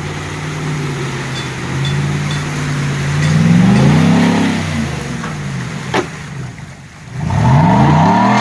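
A vehicle's engine is running and is revved hard twice, its pitch climbing and then falling each time. There is a single sharp knock between the two revs.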